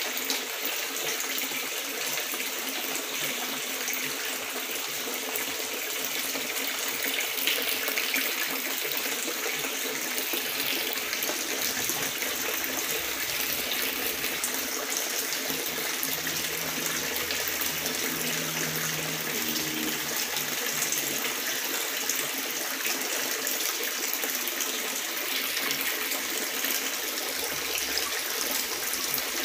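Water pouring and splashing steadily into a koi pond, a continuous rushing hiss.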